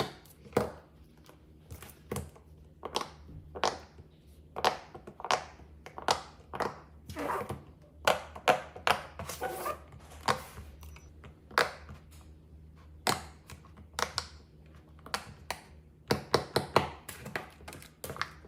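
Plastic fidget toys being handled: a long run of sharp clicks and taps, irregularly spaced, with quick runs near the start and near the end and some rustling in the middle.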